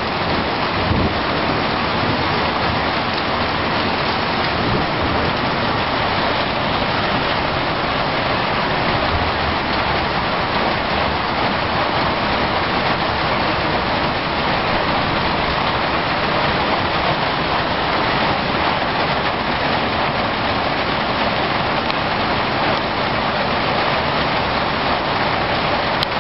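Heavy thunderstorm rain falling steadily on a garden's leaves and grass, a constant even hiss.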